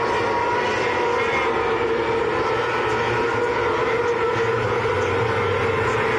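Several winged sprint cars circling a dirt oval, their methanol-burning V8 engines running loud and steady, many engines at once.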